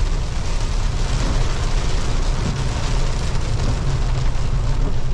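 Mahindra Bolero diesel SUV driving through floodwater in heavy rain: a steady low rumble of engine and tyres under a continuous hiss of rain and water spraying up from the wheels.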